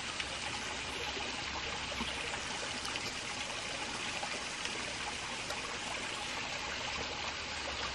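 Small creek water trickling and babbling steadily.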